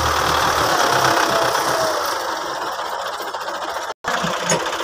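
Belarus tractor's four-cylinder diesel engine running hard under load, its rear wheels churning loose dirt. The engine clatters steadily, easing off slightly partway through.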